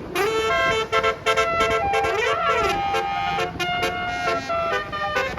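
A bus's telolet horn playing a quick multi-note tune: pitched notes stepping up and down in short blasts, with a rising and a falling wail sweeping across each other about two seconds in.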